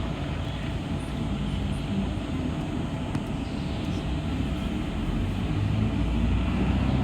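City bus running: a steady low rumble of engine and road noise, growing slightly louder near the end.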